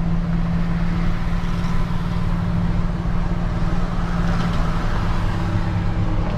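Pickup truck's engine and road noise heard from inside the cab while driving: a steady low hum with an even drone on top.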